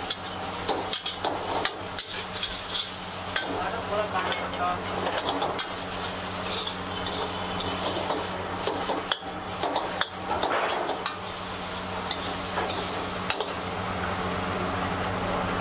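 Schezwan noodles and vegetables sizzling in a wok over a high gas flame, while a metal ladle scrapes and clanks against the wok as it is tossed and stirred. The clanking stops about a second from the end, leaving the sizzle over a steady low hum.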